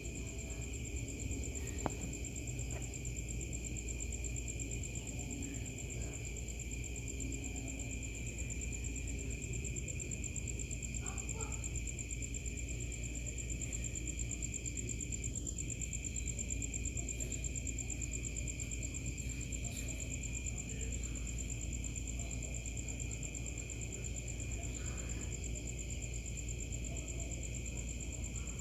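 Crickets and other night insects trilling steadily in two unbroken high-pitched tones, over a low steady hum.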